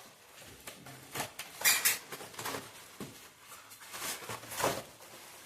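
Styrofoam and plastic packing being handled around an electric fireplace as it is lifted from its box: scattered scratchy rustles and light knocks, with a louder squeaky scrape a little under two seconds in.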